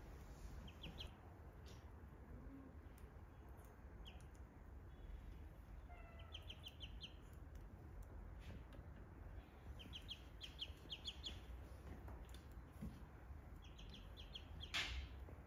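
Ducklings peeping in short runs of quick, high notes every few seconds, over a faint low hum. A short knock near the end is the loudest sound.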